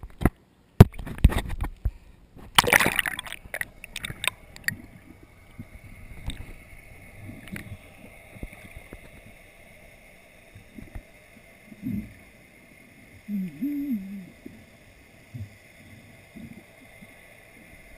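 Sea water splashing and sloshing as a camera is plunged under the surface, then muffled underwater gurgles and low knocks.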